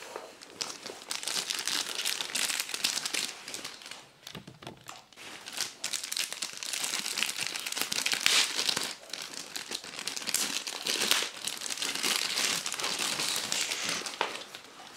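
Packaging crinkling and rustling as it is handled and unwrapped, with a brief lull about four seconds in.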